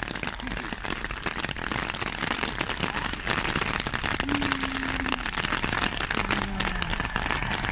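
Electric multiple-unit train running past, heard under a dense crackling noise that grows louder about a second and a half in.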